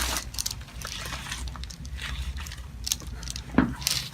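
One sharp crack about three and a half seconds in, the joint release of a chiropractic adjustment, over a low steady hum with a few faint clicks before it.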